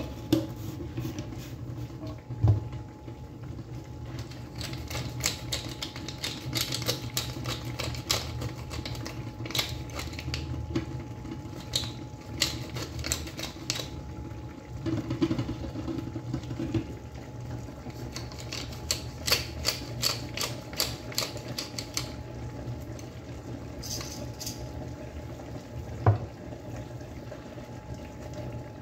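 Hand pepper mill being ground over a frying pan: rapid crackly clicking in two long stretches, over a steady low hum. Two single knocks, one early and one near the end.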